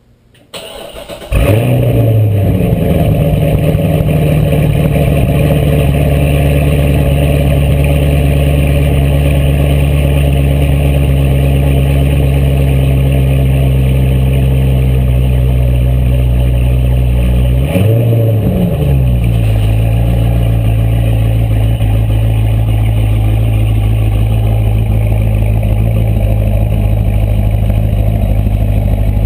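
2011 Corvette Z06 Carbon Edition's 7.0-litre LS7 V8 cold-starting with its exhaust flaps held open: a short crank, then it catches and settles into a loud, steady fast idle with no revving. Past the middle the idle dips briefly and then steadies at a slightly lower pitch.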